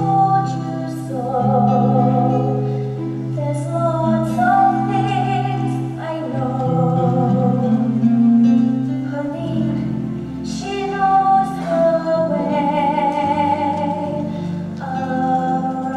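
A girl's solo voice singing a slow musical-theatre song over instrumental accompaniment, with long held notes.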